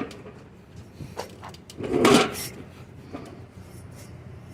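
Handling noise from taking apart a display case: a few light knocks and one louder scraping clatter about two seconds in, as its parts are worked loose.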